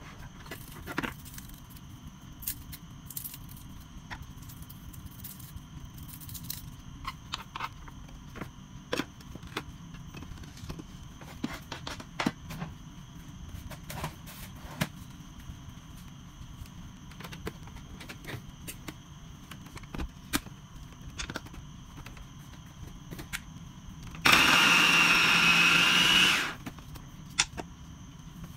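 Scattered small clicks and knocks of handling on a kitchen counter, then about 24 seconds in an electric mini chopper's motor runs steadily for about two seconds, chopping mushroom stems and garlic, and stops.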